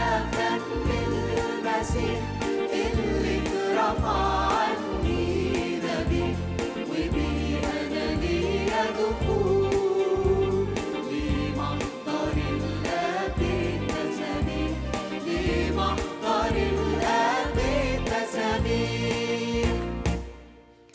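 A woman's solo voice sings an Arabic Christian hymn into a microphone over a keyboard accompaniment with a steady bass beat, with choir voices behind her. The music drops away briefly near the end.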